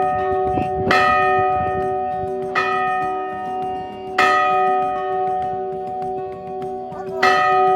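Battleship USS Iowa's ship's bell being rung, struck four times at uneven intervals. Each strike rings on with the same clear tone and overtones, fading slowly into the next.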